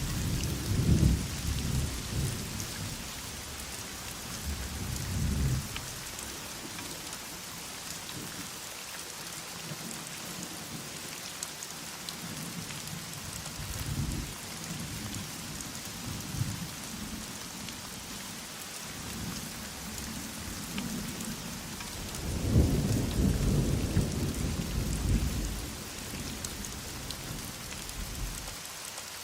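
Heavy rain falling steadily, with low rumbles of thunder: one at the start, shorter ones about five and fourteen seconds in, and a longer roll near the end.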